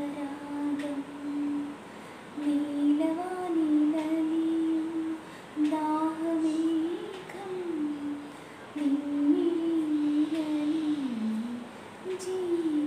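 A woman humming a song melody without accompaniment, in four long phrases of held, gently gliding notes with short breaths between them.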